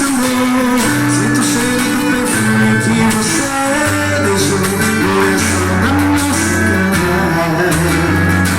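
Forró music played by a band: a bass line of held notes changing about once a second under a melody, with a steady percussion beat.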